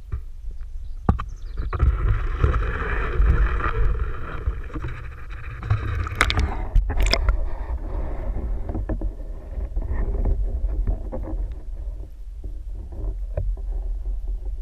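Water splashing and rushing around a camera as it goes down into a creek, with two sharp knocks about six to seven seconds in. After that comes the muffled low rumble of the camera sitting underwater, with faint ticks.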